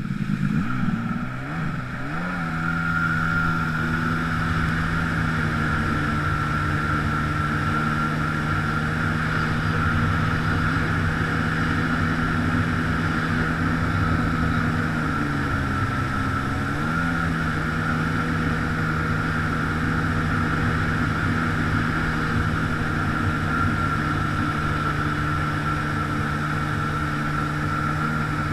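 Jet ski engine running under way, with water rushing and spraying under the hull. The engine note climbs as it speeds up in the first couple of seconds, then holds steady with a higher whine above it. About halfway through it dips briefly and climbs back.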